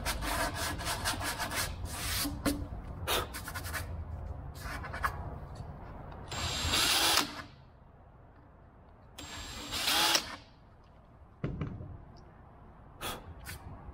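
Cordless power drill running in two short bursts, about a second each, drilling small rivet holes for a nut plate through the plywood deck. Before the first burst come several seconds of rubbing and scraping from hand work on the wood.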